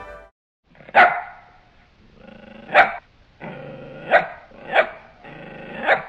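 A dog barking and growling: five sharp barks, with snarling growls between the later ones.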